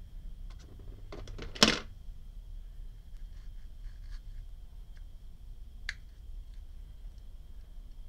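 Handling noise from a petrol lighter's metal insert being worked by hand: a few small clicks, then one sharp knock about one and a half seconds in, and one lighter click near six seconds.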